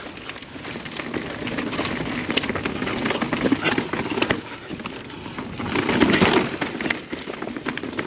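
Mountain bike riding down a rocky dirt trail: tyres rolling and crunching over rocks and roots, with irregular knocks and rattles from the bike, loudest about six seconds in.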